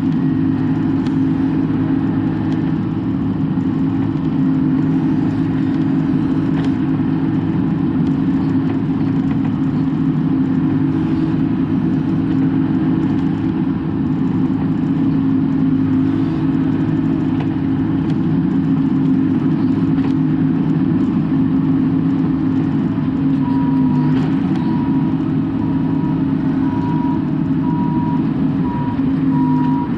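Bobcat E42 mini excavator's diesel engine running steadily, heard from inside the cab. About two-thirds of the way through, the machine's travel alarm starts beeping, about two beeps a second.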